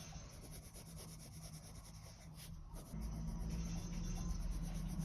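Soft-core coloured pencil scribbling and shading on paper in quick, faint back-and-forth strokes. A low steady hum comes in about three seconds in.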